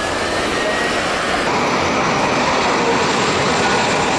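Jet airliner's engines heard as a loud, steady rushing noise that grows a little louder about a second and a half in as the aircraft comes closer.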